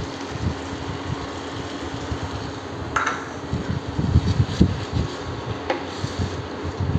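Tomato puree poured into a pan of frying masala, a small bowl set down on the counter with a clink about three seconds in, then a wooden spatula stirring and knocking in the pan, over a steady background whir.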